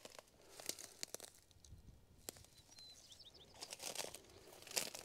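Footsteps crunching through dry, dead grass and weeds: an uneven series of soft crackling crunches.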